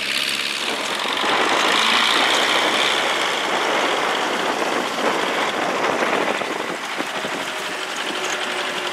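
MTZ-82 tractor's diesel engine running steadily close by, a dense, even engine noise.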